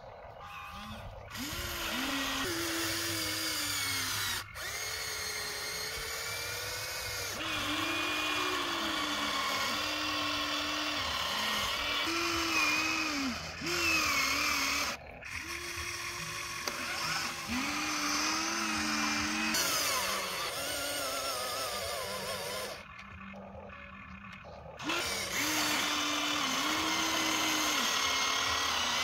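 Small electric motors of a Huina radio-controlled excavator whining, rising and falling in pitch in short strokes as the arm and bucket move. The sound cuts out abruptly a few times.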